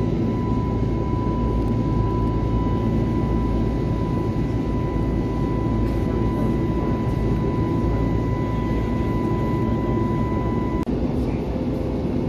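Steady in-flight cabin noise of an Airbus A321neo: a deep rush of engines and airflow with a steady high whine over it. Just under eleven seconds in the sound cuts abruptly and the whine is replaced by a lower steady tone.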